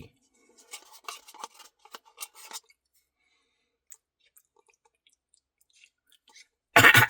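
Eating sounds from a cup of Blizzard ice cream: small clicks and scrapes of a spoon and cup with chewing, clustered in the first couple of seconds, then a few scattered ticks. Near the end comes a loud, short sound.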